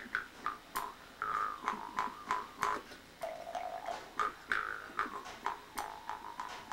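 Amis mouth harp being played, plucked about three times a second, each twang ringing briefly as the notes step through a simple tune. The pitch drops lower about three seconds in.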